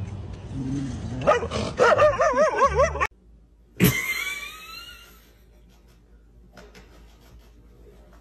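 A dog whines and yips in a wavering pitch. About four seconds in, a cat lets out one loud meow that falls in pitch.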